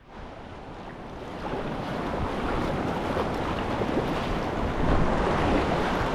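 Rushing whitewater of a river surf wave, a steady wash of water noise with wind buffeting the microphone, growing louder over the first second and a half.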